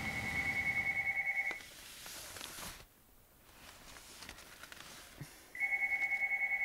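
Cordless telephone ringing with an electronic trilling tone: one ring at the start, lasting about a second and a half, and a second ring starting about five and a half seconds in.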